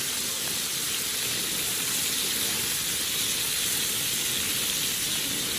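Thick steaks sizzling in a hot pan: a steady frying hiss of meat searing in its juices.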